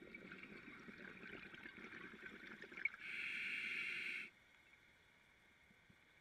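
Scuba diver breathing through a regulator underwater: exhaled bubbles gurgle for about three seconds, then a click, then a steady hiss of inhaling for just over a second.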